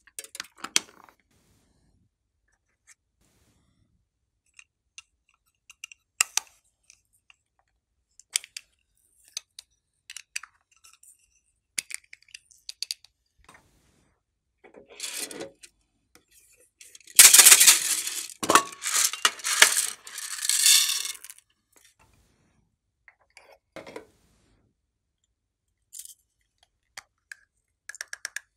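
Small plastic containers being handled and opened, with scattered clicks and taps, and a louder stretch of dense rustling and clattering about 17 seconds in that lasts some four seconds.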